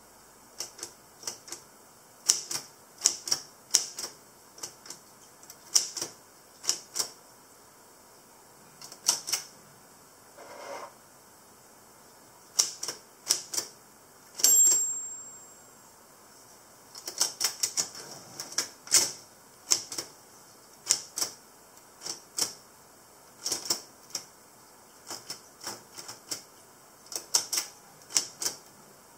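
Keys of a classic Brother typewriter being typed, sharp clacking strikes in irregular runs with a pause near the middle. A single bell-like ding about halfway through.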